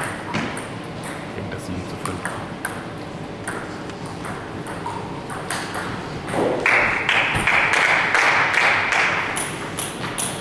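Table tennis balls clicking, many sharp ticks at an uneven pace. About six and a half seconds in, a loud rushing noise starts, holds for about three seconds and then fades.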